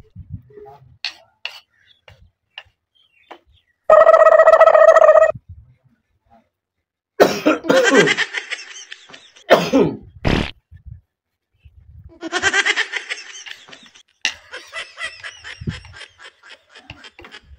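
Wordless vocal noises: a loud, steady, bleat-like call lasting about a second and a half, then several stretches of gliding, grunting voice sounds.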